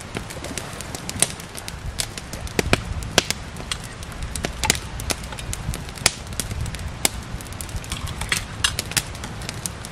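Campfire of dry wood crackling, with sharp irregular pops over a low steady rumble.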